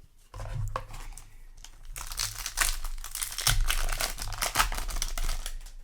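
Foil booster-pack wrapper of a trading card game being handled, crinkling and tearing as the pack is opened. There is softer rustling at first, and louder, dense crinkling from about two seconds in.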